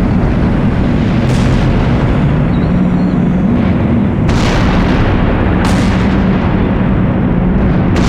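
AI-generated solar flare sound effect from the FALL-E sound-generation model: a continuous loud, dense rumble with four brief crackling bursts spread through it.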